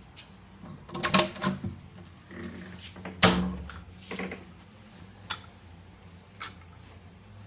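Wooden interior door being opened and shut, with a creak and rattling clicks from the knob and latch and a sharp knock about three seconds in, then a few light taps.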